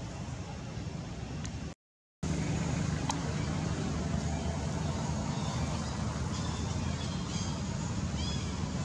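Outdoor ambience: a steady low rumble, broken by a brief dropout to silence about two seconds in, with faint short high chirps repeating from about six seconds in.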